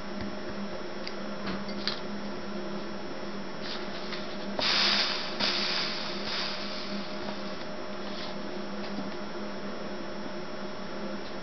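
A hot soldering iron working solder along a stained-glass seam. About five seconds in the flux sizzles in a short hiss, followed by a weaker fading second hiss, over a steady low hum and a few faint clicks.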